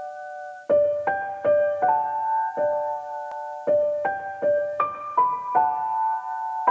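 Background music: a slow keyboard melody of single struck notes, each left to ring, in a repeating pattern.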